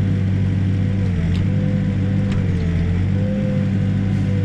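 Backhoe's diesel engine running steadily while digging, with a whine above it that sags in pitch twice as the machine works, and a couple of faint clicks.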